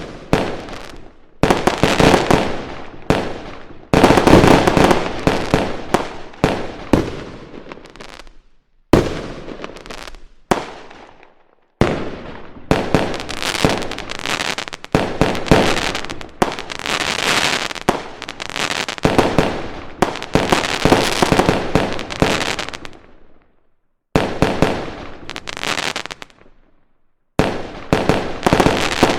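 Fireworks sound effect: volleys of bangs, one after another, each trailing off in crackle, broken by about five brief silent pauses.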